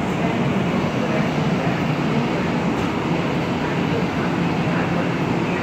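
Long Island Rail Road M7 electric multiple-unit train at the platform, giving off a steady hum with a low tone and no change in level.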